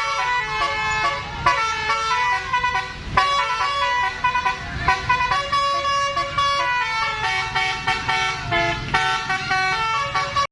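Basuri bus's telolet horn, a multi-trumpet musical air horn, playing a quick run of changing notes, several tones sounding together like a jingle.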